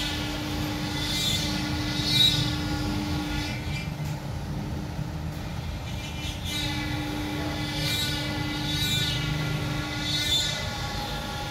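CNC wood router running: a steady hum under a machine whine that rises and falls in pitch every second or two.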